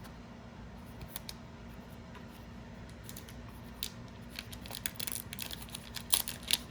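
Trading cards and their foil pack wrapper being handled: soft scattered clicks and rustles that become busier and sharper in the second half.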